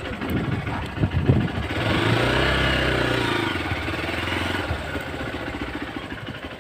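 Hero XPulse 200 motorcycle's single-cylinder four-stroke engine revving under load. Its pitch rises about two seconds in, holds, then drops and fades away toward the end.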